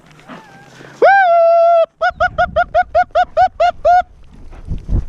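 A man's loud whooping calls: one long held "woo" on a single pitch, then a rapid string of about ten short whoops, about five a second.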